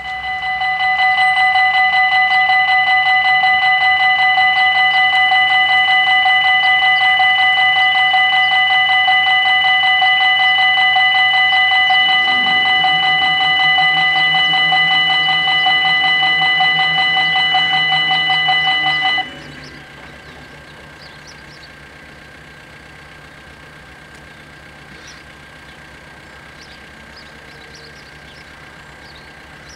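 The two electronic warning bells of a Belgian level crossing ringing: a loud, fast-pulsing tone made of several steady pitches. A low hum joins under them about twelve seconds in while the barrier booms come down. The bells cut off suddenly a little after nineteen seconds, once the booms are down, leaving only faint background noise.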